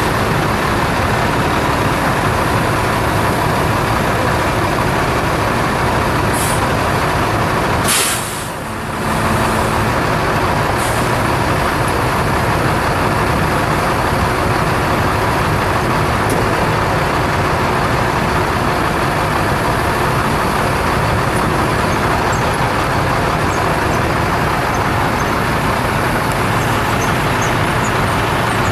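The International 4700 truck's 7.3-litre V8 turbo diesel runs steadily, powering the aerial lift's hydraulics while the boom is raised and swung. About eight seconds in there is a brief sharp noise, followed by a short dip in the running sound.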